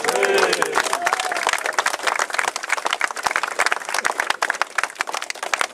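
A crowd applauding, starting suddenly, with a few voices calling out over the first second.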